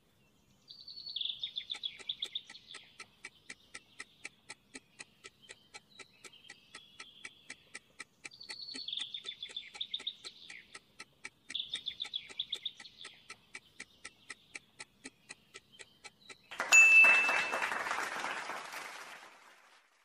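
Countdown-timer ticking sound effect, fast and even, over recorded birdsong with chirps and trills. Near the end a bright chime with a hissy swell rings out and fades over about three seconds as the answer is revealed.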